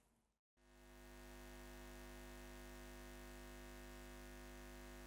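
Faint steady low hum, a buzz of many fixed tones, fading in about half a second in after a moment of silence.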